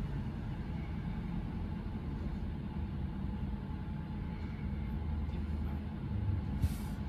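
Steady low background rumble, with a short bump near the end.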